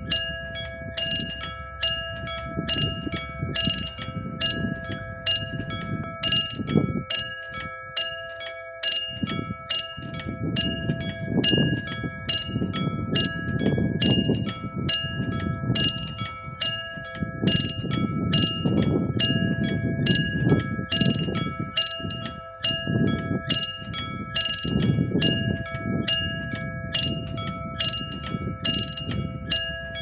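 Analogue level-crossing warning bells at a Korean railway crossing, ringing with a steady, even run of strikes, several bell pitches sounding together. A varying low rumble runs underneath.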